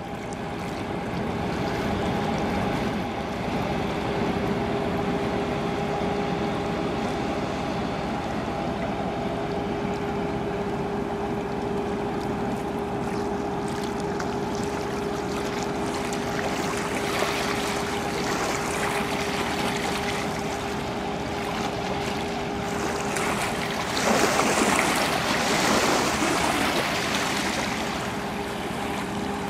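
A motor vessel's engine drones with a steady, constant hum over wind and lapping river water; a louder rush of noise comes about 24 seconds in.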